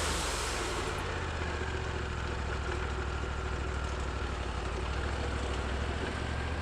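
Sawmill engine running steadily at idle, with a broad hiss that dies away about a second in.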